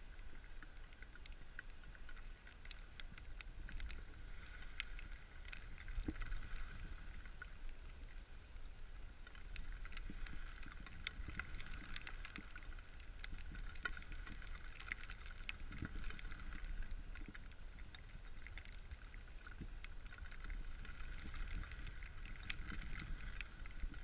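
Skis sliding and scraping over snow through a run, with frequent small clicks and scrapes and a low wind rumble on the microphone.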